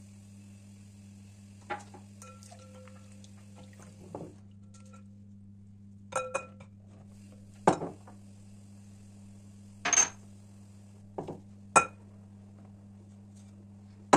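Scattered clinks and knocks of small dishes and a black spoon against a clear glass mixing bowl while ingredients are tipped in and stirred, about eight separate strikes, some ringing briefly. A steady low hum runs underneath.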